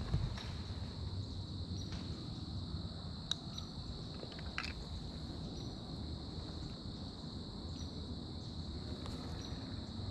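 Steady, high-pitched chorus of insects over a low rumble, with a few faint clicks.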